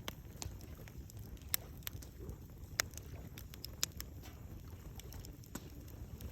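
Campfire wood crackling, with irregular sharp pops (the loudest three about a second apart near the middle) over a low steady rumble.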